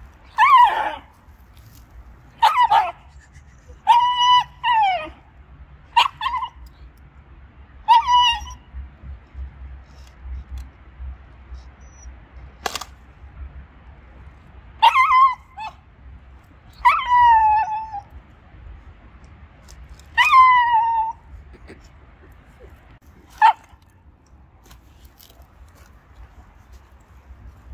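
Shiba Inu whining in short, high-pitched calls every second or two, several dropping in pitch at the end, with a long pause in the middle and a couple of sharp clicks.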